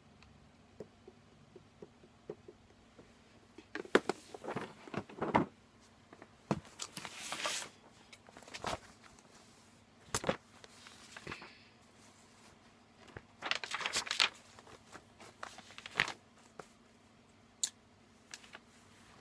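A plastic Sharpie marker case and a paper pad handled on a lap: scattered clicks and knocks, with several bursts of paper rustling as pages are flipped.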